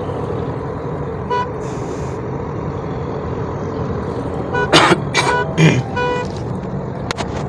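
Steady road and engine noise inside the cabin of a moving 2018 Toyota Corolla GLi. From about four and a half to six seconds in come several short beeps and sharp knocks, with one brief beep earlier at about a second and a half.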